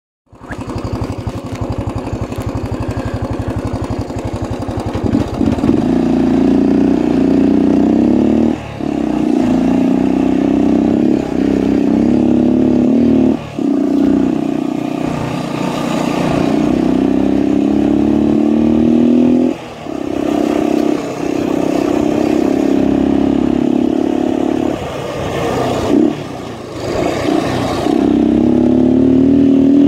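Honda XL250's four-stroke single-cylinder engine running. It idles with an even throb for about five seconds, then pulls away under way. Its pitch climbs again and again, with brief dips at the gear changes and throttle lifts.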